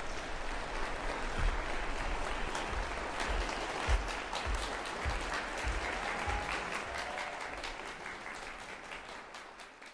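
Concert hall audience applauding, the clapping thinning out and fading toward the end, with a few low thumps, the loudest about four seconds in.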